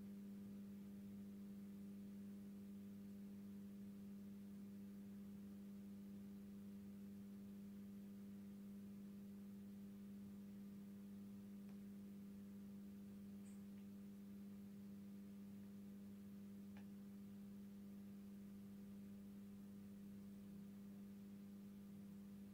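Faint, steady electrical hum from an Industria 2600 street light warming up, one low unchanging tone with weaker overtones, typical of a discharge lamp's magnetic ballast.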